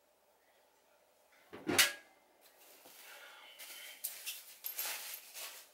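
A single thump a little under two seconds in, then a plastic bag crinkling and rustling as it is handled.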